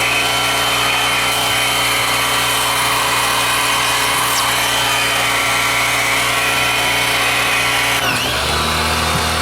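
Pressure washer running with its jet spraying, a steady machine hum under a loud hiss. About eight seconds in the pitch falls and settles into a lower steady hum.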